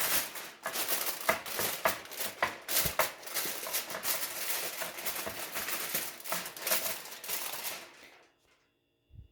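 Aluminium foil crinkling and rustling with many sharp crackles as a sheet is spread and pressed over a baking tray; it stops about eight seconds in, followed by a single soft low bump.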